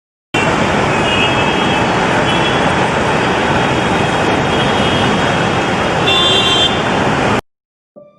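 Loud road traffic din with vehicle horns tooting a few times. It starts and cuts off abruptly.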